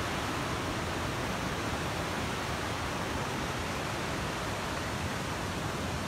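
A waterfall's water rushing steadily: an even, unbroken noise.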